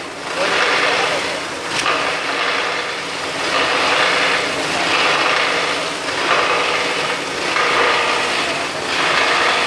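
24-inch plastic grinder (granulator) running and chopping black plastic film fed into its hopper by hand: a loud grinding and shredding noise over a steady motor hum, swelling and easing in waves about every second or so as each handful goes in.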